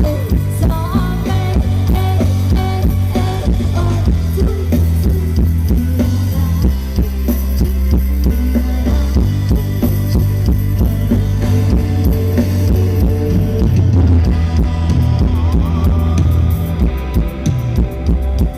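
Rock-style band music with a drum kit, guitar and bass playing steadily.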